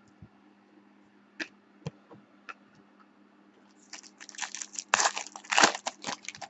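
Foil wrapper of a Panini Select basketball card pack being torn open and crinkled by hand: a dense crackling stretch of about two seconds starting around four seconds in, after a few light clicks.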